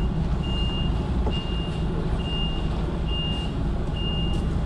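Lorry reversing alarm beeping steadily about once a second, each beep a single high tone, over the low rumble of the HGV's diesel engine as it backs up.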